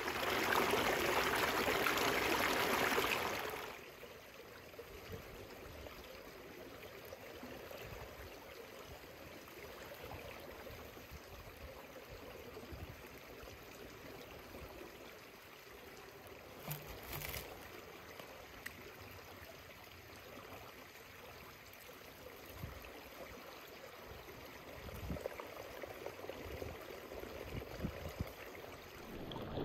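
Small forest creek running over rocks, loud and close for the first few seconds, then a softer steady babble, with a brief click about halfway through.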